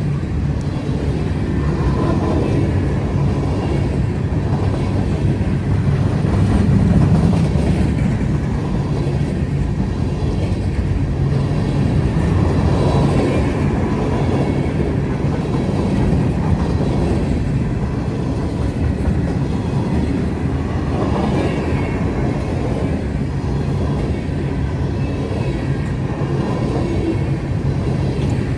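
Freight train passing on the CNO&TP line, its cars rolling over the rails with a steady rumble.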